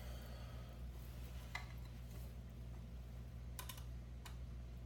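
A few small sharp clicks of a screwdriver and screw against a 3D-printed plastic part: one about a second and a half in, two more near the end. A steady low hum runs underneath.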